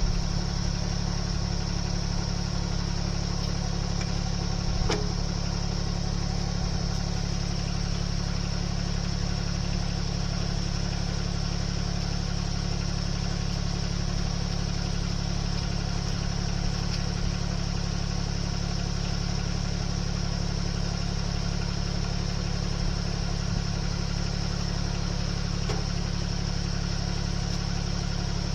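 A machine's engine running steadily at an even speed, with a low, unchanging drone. There is a faint click about five seconds in.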